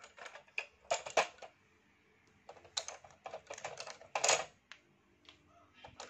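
Hard plastic toy bus (a Tayo the Little Bus toy) handled and turned over on a tiled floor, with fingers working at its underside: scattered clicks and knocks of plastic, the loudest about a second in and a little past four seconds.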